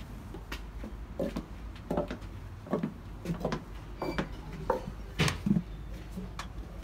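Irregular footsteps and small knocks, then two louder clunks about five seconds in as a wooden door is grasped and pulled open.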